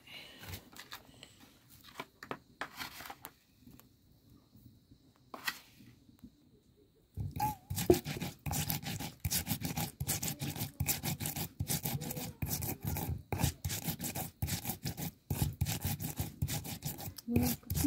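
Flat grinding stone and hand stone (Nepali silauto and lohoro) crushing cumin seeds, the hand stone scraping and rubbing against the slab. For about the first seven seconds there are only a few scattered scrapes and taps; then quick back-and-forth grinding strokes start and keep going.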